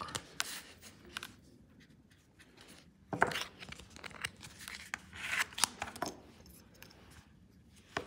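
Plastic scraper card swiped across a metal nail-stamping plate to scrape off excess stamping polish, with a sharp scraping swipe about three seconds in and another around five seconds. Small clicks of handling the polish bottle and tools come in between.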